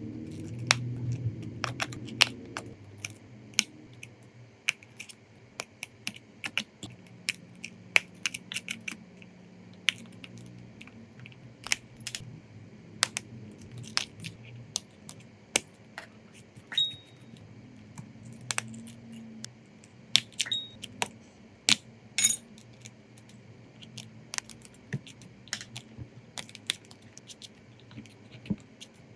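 Small hand tools clicking and tapping against a phone's glass back and metal frame during a back-glass repair: sharp, irregular clicks, several a second at times, over a faint low hum that is a little stronger in the first couple of seconds.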